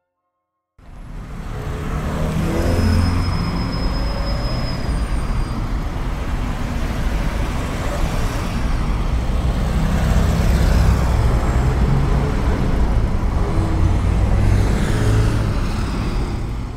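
Loud, heavy rumble of large vehicle engines with dense street noise, starting about a second in and running on steadily.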